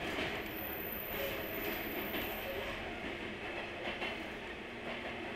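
Local electric train running between stations, heard from inside the passenger car: a steady rumble of wheels on the rails with a faint motor hum.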